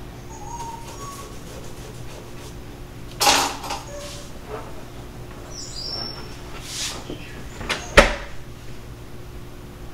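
Hand-held trigger spray bottle spritzing cleaner onto a stainless steel dishwasher door, two short sprays about three seconds and about seven seconds in. A single sharp click, the loudest sound, comes about eight seconds in.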